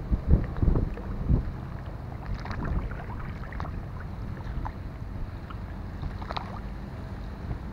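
Floodwater lapping and splashing against a crumbling mud embankment, with small scattered splashes, over a low rumble of wind buffeting the microphone that is strongest in the first second or so.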